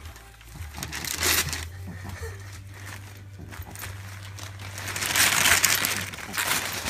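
Wrapping paper crinkling and rustling as a dog roots into a wrapped present to unwrap it. The rustling comes in uneven bursts and is loudest about five seconds in.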